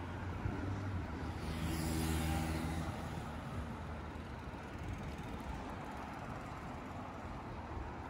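An engine passes by, loudest about two seconds in and then fading, over a steady outdoor rumble.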